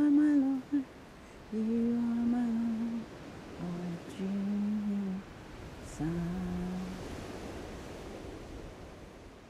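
A woman humming a slow wordless tune: a handful of long held notes, each about a second, mostly stepping down in pitch. The humming stops about seven seconds in, leaving a faint hiss that fades away.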